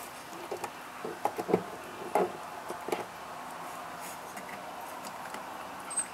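A ball knocking and tapping in a tight corner as a puppy noses at it: a quick run of knocks between about half a second and three seconds in, then a single tap near the end.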